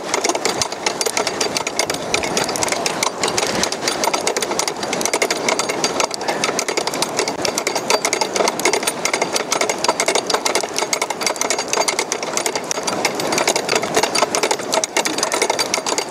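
Longline winch motor running steadily with a fast mechanical clatter as it winds in the fishing longline.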